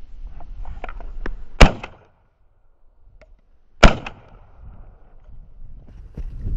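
Two shotgun shots about two seconds apart, each a sharp, very loud crack with a short ringing tail. Small clicks and rustling come just before the first shot.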